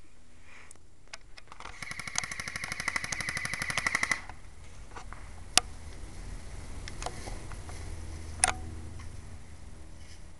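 Electric airsoft gun firing a full-auto burst of rapid, evenly spaced clicks lasting about two and a half seconds. Two single sharp snaps follow later, about three seconds apart.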